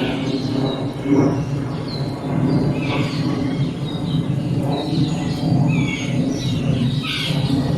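Birds chirping and calling many times over a steady low background hum of outdoor noise.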